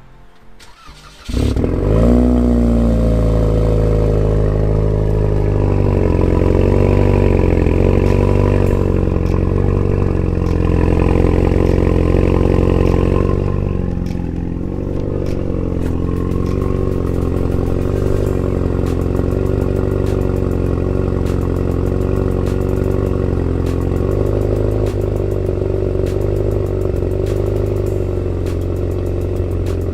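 Cadillac ATS's 2.0-litre turbocharged four-cylinder engine with the muffler deleted. It cuts in suddenly about a second in, flares briefly, then idles steadily and loudly through the open exhaust.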